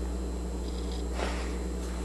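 Steady low electrical hum, with a faint soft noise a little past a second in.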